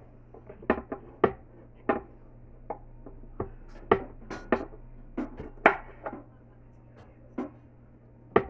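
A kitchen knife chopping yardlong beans on a wooden cutting board: sharp, irregular taps of the blade striking the board, some in quick pairs, with a longer pause near the end.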